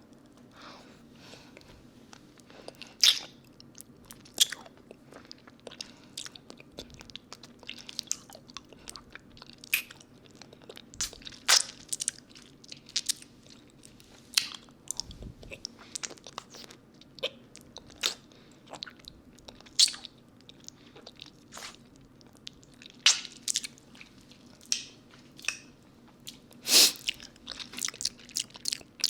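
Close-up mouth sounds of a lollipop being sucked and licked: irregular wet clicks and smacks, a few of them much louder than the rest, picked up on a binaural microphone close to the mouth.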